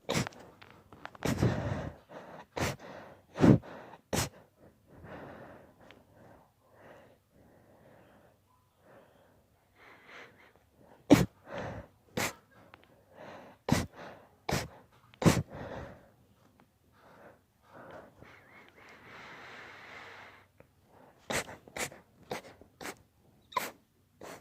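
A man sneezing over and over in an induced sneezing fit: about a dozen sharp sneezes in clusters, with breathing and gasps between them and a longer breathy rush a little before the last quick run of sneezes.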